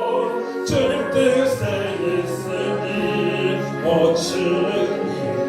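A slow Korean worship song being sung, with long held notes.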